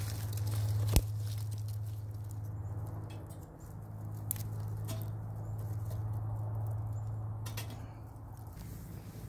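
Wood fire crackling and popping inside a small collapsible wood-burning camp stove, with one sharp pop about a second in, over a low steady hum.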